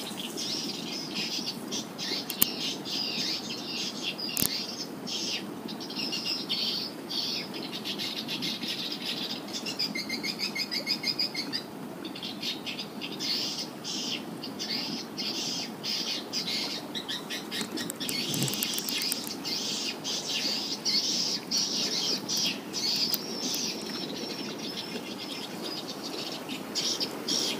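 Swiftlets twittering: a dense, unbroken stream of high chirps around a swiftlet nest house, over a steady low background hiss. Two sharp clicks a few seconds in.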